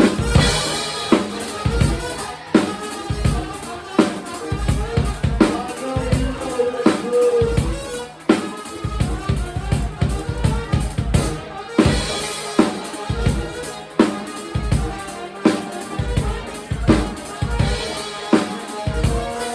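Live band's drum kit playing a busy groove of bass drum, snare and rimshots, with a few short held horn notes over it.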